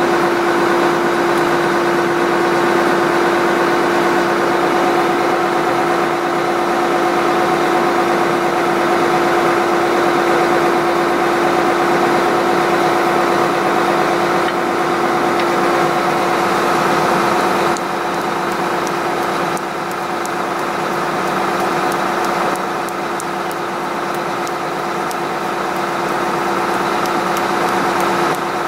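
Small horizontal directional drilling rig's engine running steadily with a constant droning tone, dipping slightly in loudness about two-thirds of the way through.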